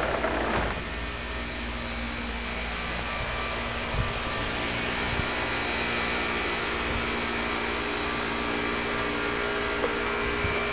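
Steady machine-like hum with an even hiss, carrying several steady pitches, with a couple of faint knocks about four and five seconds in.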